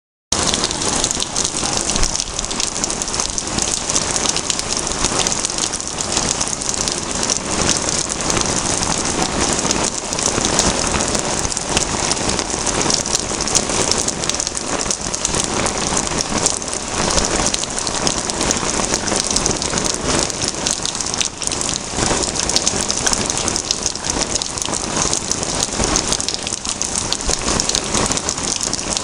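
Heavy, steady rainfall, a dense hiss of drops pattering on surfaces that runs on without letting up.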